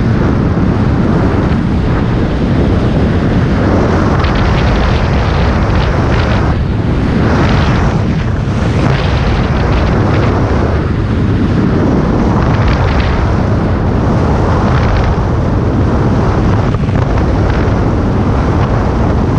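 Heavy wind buffeting the microphone of a camera on a BMW R1250RT motorcycle riding at highway speed in gusty wind: a loud low rumble that swells and eases every few seconds.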